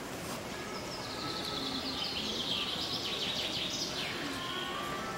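Outdoor background noise with a small bird singing a fast, trilling song, from about a second in until nearly four seconds in, where it drops away.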